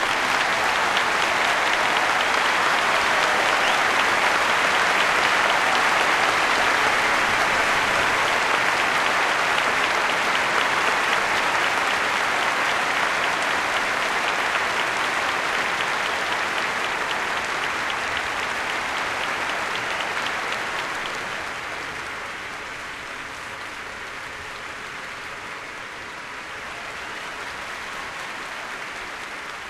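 Applause from an audience, a dense clapping that starts loud as the music ends and drops to lighter clapping after about twenty seconds.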